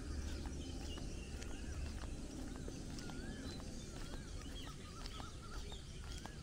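Several birds calling in short, wavering whistles and chirps from roadside trees, over footsteps on asphalt about twice a second and a low rumble.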